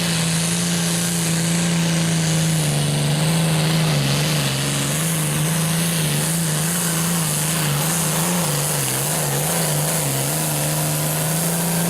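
Super stock pulling tractor's engine running flat out while hauling the sled: a loud, steady drone whose pitch drops about three seconds in, as the load comes on, and then wavers up and down through the rest of the pull.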